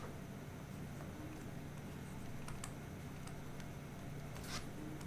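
Faint, irregular light clicks over a steady low hum, with one louder click about four and a half seconds in.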